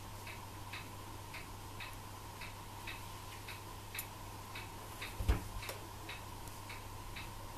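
Steady, even ticking, about two ticks a second in an alternating tick-tock rhythm, over a low steady hum. A single dull thump about two-thirds of the way through.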